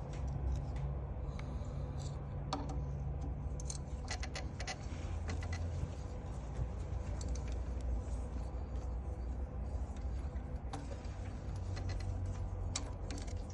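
Scattered metallic clicks and clinks of small hand tools working on the fittings of an e-bike front hub motor's axle and torque arm, over a steady low hum.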